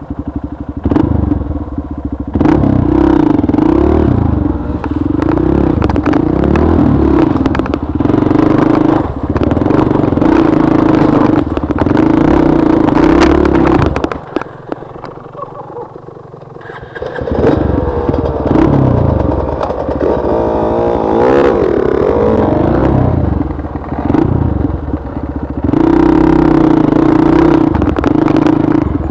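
Dirt bike engine being ridden on a trail, its pitch rising and falling with the throttle. About halfway through, the engine drops to a quieter stretch for a few seconds, then picks up again.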